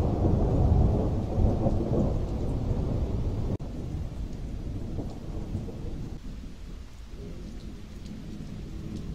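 Thunder rumbling over steady rain from a supercell storm. The rumble breaks off abruptly a few seconds in, leaving quieter rain noise.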